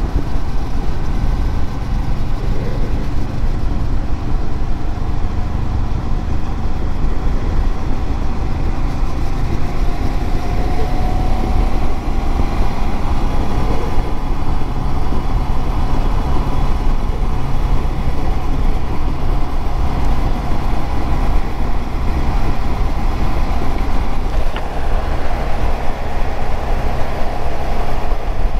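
Ride-along recording on a Suzuki motorcycle at about 50 to 70 km/h: a steady, heavy wind rush on the microphone over the drone of the engine, whose faint pitch drifts up and down with the throttle.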